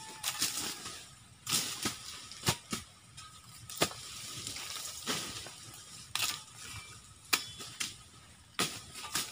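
A machete chopping through sugarcane stalks: about ten sharp chops at irregular intervals, roughly one a second, over rustling of dry cane leaves.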